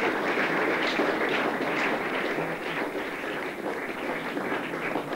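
A roomful of people applauding: dense, steady clapping that eases off a little toward the end.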